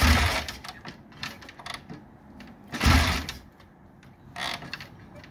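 A 1949 Triumph TR5's 500 cc parallel-twin being kick-started: two kicks about three seconds apart, the engine turning over each time without catching. It is not firing because its kill button is stuck.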